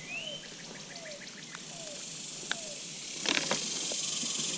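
Wild birds calling: short rising chirps and a repeated quick falling note about twice a second, over a steady high hiss. A brief burst of noise a little over three seconds in.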